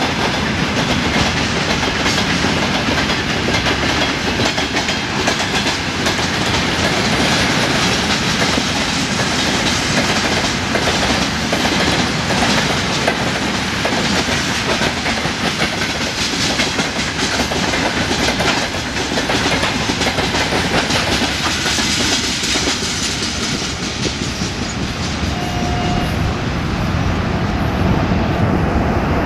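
Freight train of tank cars and gondola wagons passing close by: steel wheels clattering over rail joints in a fast, unbroken clickety-clack over a continuous rumble of the rolling train. A brief short tone sounds near the end.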